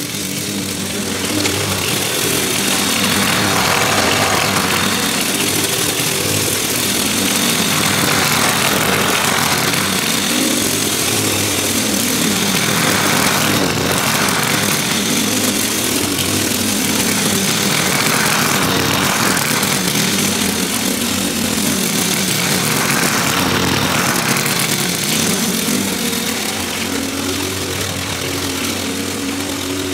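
Gas-engined walk-behind lawn mower with a rear grass bag running steadily while mowing grass. Its sound swells and eases every two seconds or so, and is a little quieter near the end.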